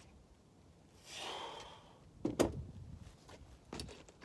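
A man's heavy exhale of frustration about a second in, followed by two sharp knocks and a few small clicks from parts being handled.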